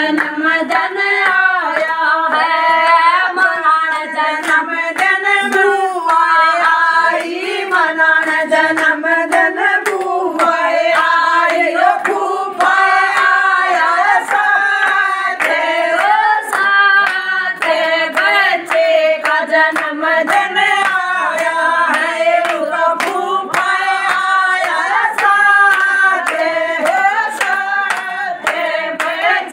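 A group of women singing a Haryanvi devotional bhajan together, clapping their hands in a steady rhythm along with the song.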